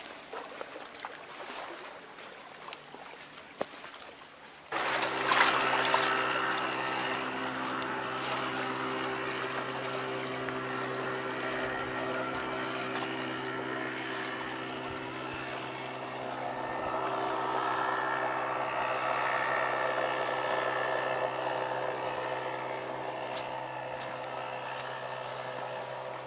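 A steady motor drone at a constant pitch comes in suddenly about five seconds in and runs on evenly, louder than what came before. Before it there are only a few light clicks and knocks.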